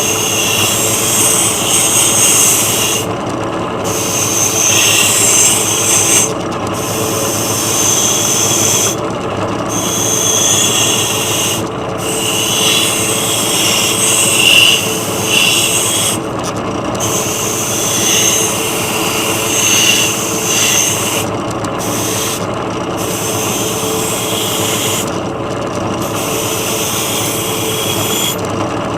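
Hand deburring of machined metal mount parts: high-pitched scraping and filing in stretches of a few seconds, broken by short pauses, over a steady drone of shop machinery.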